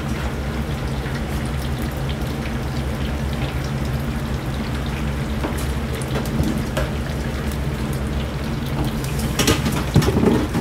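Deep-frying oil sizzling and bubbling steadily around battered sakura shrimp kakiage fritters cooking in metal rings, over a steady low hum. A few sharp clicks near the end as a metal strainer and chopsticks are worked over the fryer.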